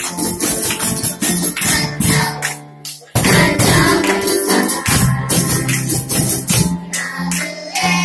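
Live music from a children's ensemble: a steady jingling hand-percussion rhythm over guitars and percussion, with children singing. The music drops away briefly about three seconds in, then comes back in full.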